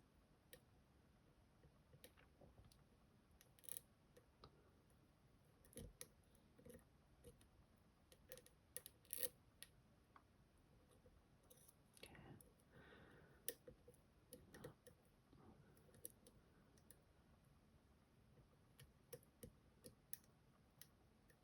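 Faint, irregular clicks and light scrapes of lock picks working the pins and sprung sidebar sliders inside an M&C Color+ dimple lock.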